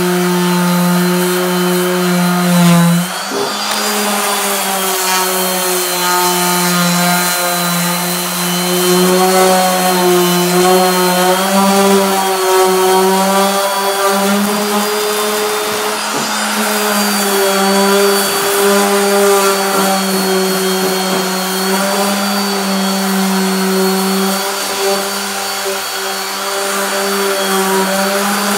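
Electric random-orbit (DA) sander running against aluminum sheet: a steady motor whine that steps up slightly in pitch about three seconds in and then wavers as the sanding goes on.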